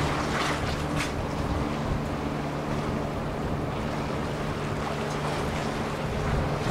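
Steady low engine drone under wind and water noise, with a couple of brief clicks about a second in.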